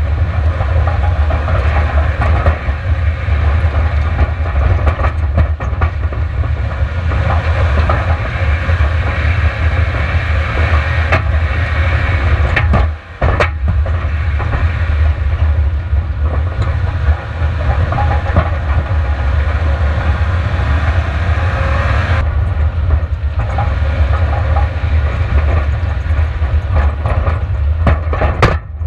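Long-travel Subaru Outback driven hard over a rocky gravel track, heard onboard: a steady low rumble of its flat-four engine and drivetrain under a rush of tyre and gravel noise, with scattered clattering knocks from stones and the suspension. The noise drops out for a moment about 13 seconds in.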